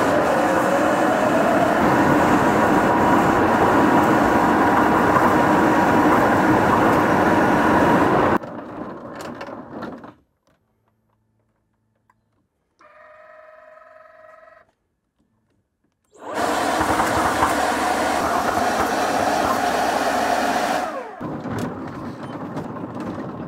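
A 3D-printed ride-on tank's electric drive and plastic tracks running loudly over the ground with a steady motor whine. It cuts out a few seconds in, and after a near-silent stretch with one short faint sound, it runs again loudly, then more quietly near the end.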